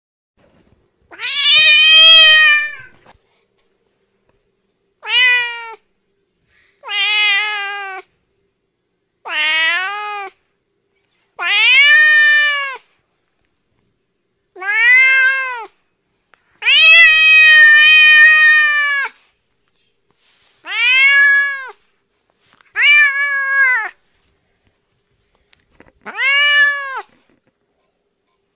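A cat meowing about ten times, each meow a clear pitched call that rises and falls, lasting from half a second to about two seconds, with short silences between; the longest comes about halfway through.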